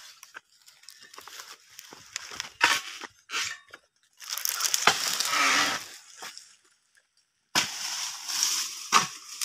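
Dry palm fronds and undergrowth rustling and crackling. A few sharp snaps come in the first few seconds, then two longer bursts of rustling, the second near the end.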